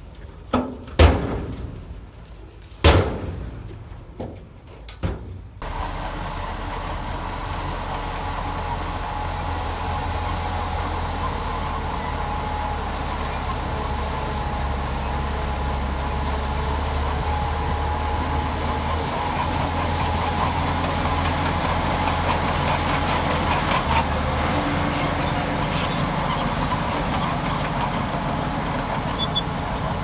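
A few sharp knocks in the first five seconds. Then a heavy diesel engine of earthmoving equipment starts being heard suddenly and runs steadily with a low hum.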